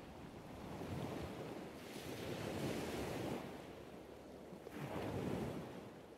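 Soft whooshing ambient noise with no pitch, swelling and fading in three slow surges, like a wind or surf sound bed.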